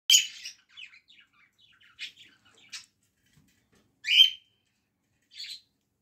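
Cockatiel chicks in the nest calling in short chirps. The calls are loudest at the very start and about four seconds in, with scattered softer chirps between and one more near the end.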